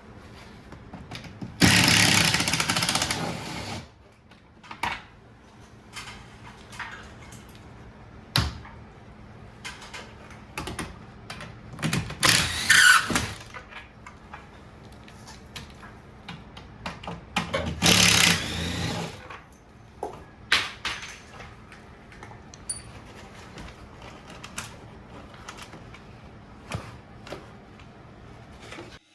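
A power tool runs in three bursts of about two seconds each, the first one tailing off as it stops. Scattered clicks and knocks of tools being handled come in between.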